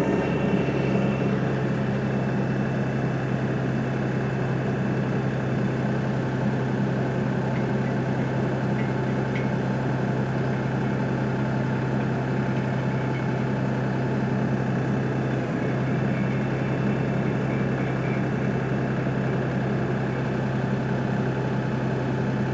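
Compact tractor's diesel engine running at a steady speed, with a low, even hum, while its PTO post hole auger is lowered into the hole it is digging.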